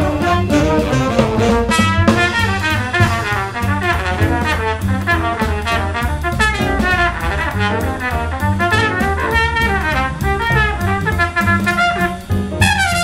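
Jazz combo swinging: a trumpet solo over drum kit, upright bass and piano, with saxophones and trombone playing at the start.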